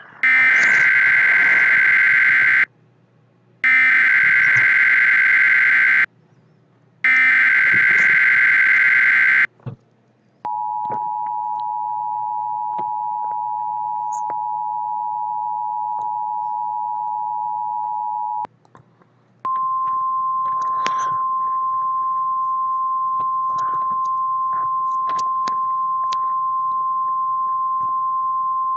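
Emergency Alert System encoder playing an alert: three bursts of SAME header data, a warbling two-tone digital code, each about two and a half seconds long with a one-second gap, encoding a Flood Statement. Then comes the two-tone EBS attention signal for about eight seconds, and after a one-second pause a steady 1050 Hz warning tone.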